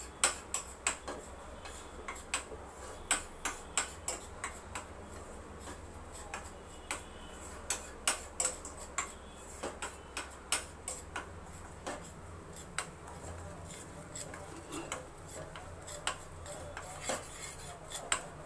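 A spoon stirring flour roasting in ghee in a stainless steel pan, clicking and scraping against the metal in quick irregular ticks, a few a second.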